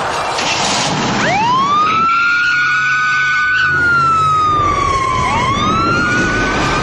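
Police car siren winding up twice: each wail climbs quickly, about a second in and again about five seconds in, then sinks slowly, over the noise of the moving car.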